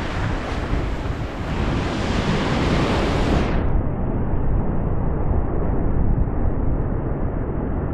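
Wind buffeting the microphone over surf breaking on shore rocks, a steady rushing noise. About halfway through it abruptly turns duller, as if the top end were cut off.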